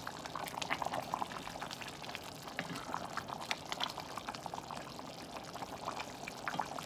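Pot of rice stuffing in its cooking liquid simmering, with many small irregular bubbling pops, while a wooden spoon stirs and sloshes through the wet rice.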